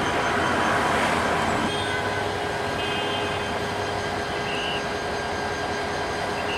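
A diesel locomotive hauls a metre-gauge passenger train slowly through yard points, with its engine running and the wheels rumbling over the rails in a continuous wash of train noise. The noise is a little louder for the first second or so.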